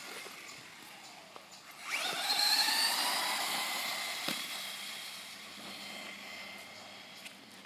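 Helion Dominus 10TR RC truggy's brushless motor and drivetrain whining. The pitch sweeps up as it accelerates about two seconds in, then the whine fades steadily as the truggy speeds away.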